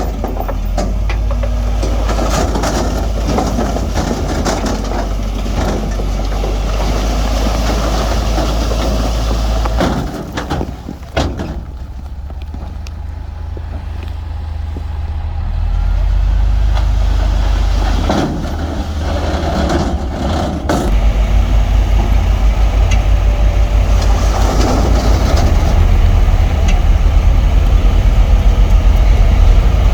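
Heavy diesel earthmoving machinery, bulldozers and dump trucks, with engines running under changing load. A few knocks and clatters come near the middle, and after about two-thirds of the way through a louder, evenly pulsing engine rumble takes over.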